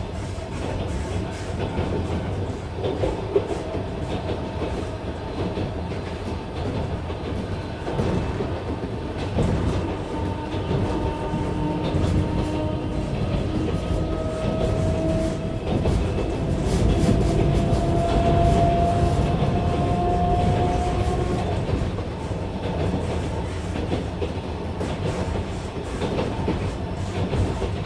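Train running, heard as from inside the carriage: a steady rumble with the clickety-clack of wheels on rail joints. In the middle a faint whine glides slightly upward as the sound swells a little.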